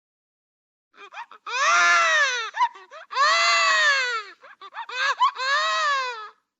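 High-pitched wailing cry: three long wails that each rise and fall in pitch, with short sobbing catches between them.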